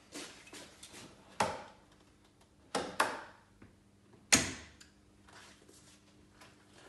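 Switchgear on a three-phase test board being switched back on: about five sharp, separate mechanical clicks from rotary isolators and breakers, the loudest about four seconds in, over a faint steady hum.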